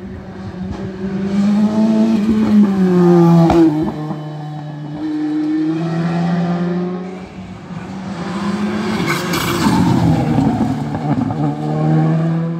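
Rally car engine revving hard, rising and falling in pitch as the car goes up and down through the gears on a twisty tarmac stage. It swells three times and there is a sharp crack about three and a half seconds in.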